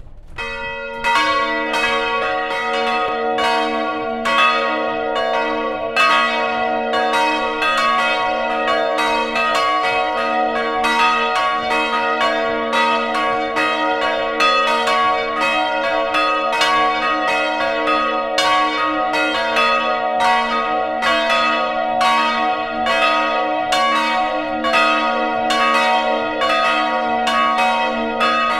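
Full peal of three swinging church bells, their clappers striking in an overlapping, unsynchronised rhythm with long ringing tones. The first bell strikes at the very start and the others join about a second in.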